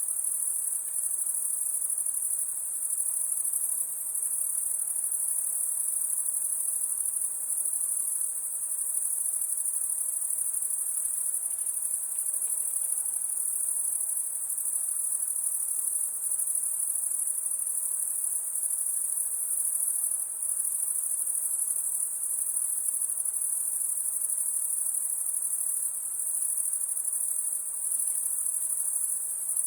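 Night insects calling: one continuous, steady, high-pitched sound with no breaks or changes.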